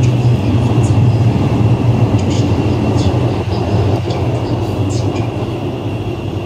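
Interior of a GTO-VVVF-equipped Siemens-Adtranz Modula (Type A1) metro car running between stations: a steady low rumble with a thin steady high tone above it, easing slightly near the end.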